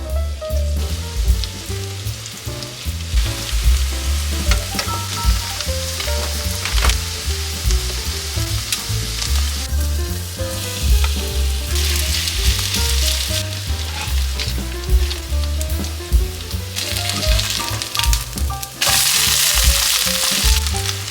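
Battered vegetable fritters deep-frying in hot oil, a steady sizzle that swells louder about eleven seconds in and again near the end. Background music with a steady bass line plays underneath.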